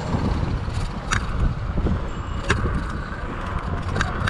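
Bicycle being ridden on a paved path, heard from a camera mounted on the bike: a steady low rumble of wind and rolling noise, with sharp clicks from the bike about every second and a half.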